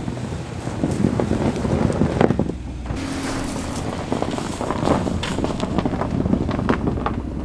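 Chevrolet pickup truck reversing slowly through rutted snow, its engine running under many crackling crunches from the tyres on packed snow. Heavy wind rumble sounds on the microphone.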